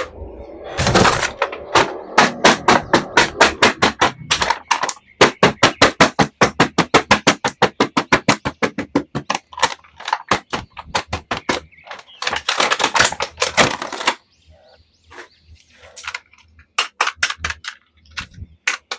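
Hands handling a plastic toy or its packaging: a fast run of short, sharp scraping or rustling strokes, about six a second, that stops about fourteen seconds in, followed by a few scattered clicks.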